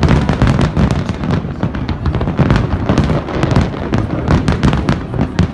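Aerial firework shells bursting in quick succession, deep booms and sharp cracks overlapping without a pause.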